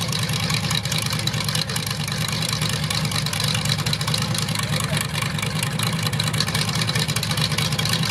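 Ford mega mud truck's 388 stroker V8 idling steadily, with no revving.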